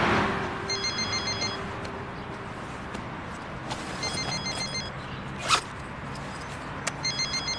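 A mobile phone ringing: three bursts of rapid high electronic trills, each under a second long and about three seconds apart. A car passes at the start, and a single sharp click or rustle, the loudest sound, comes about five and a half seconds in as the bag holding the phone is opened.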